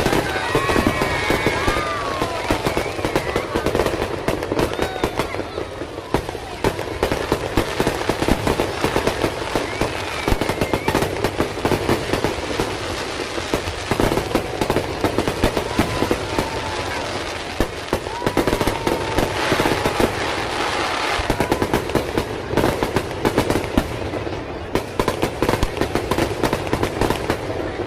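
Fireworks going off in a dense, rapid crackle of bangs and pops that keeps on without a break.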